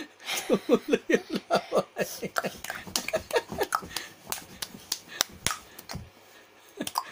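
Quick run of short playful vocal bursts, about four a second and each dropping in pitch, followed by a string of sharp clicks mixed with more short sounds, made to amuse a smiling baby.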